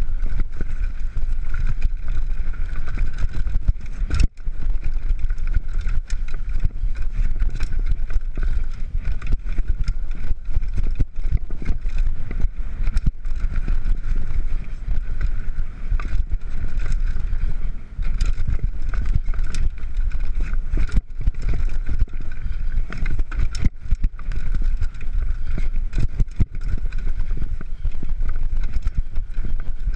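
Mountain bike ridden fast down a rough dirt trail: a constant rumble of wind buffeting the camera microphone and tyres running over dirt and stones, with frequent knocks and rattles from the bike over bumps.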